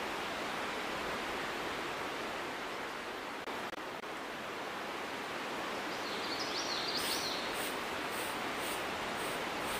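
Steady outdoor background noise, joined from about seven seconds in by a regular run of soft, brisk swishes about two a second as a handmade broom sweeps bare dirt ground.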